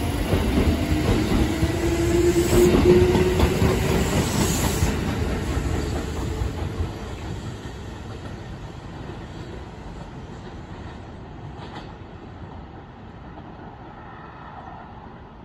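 Kintetsu 5211-series and 9000-series electric express train pulling away from the platform. A motor whine rises in pitch over the first few seconds as the train gathers speed. The train noise then fades steadily as it runs off into the distance.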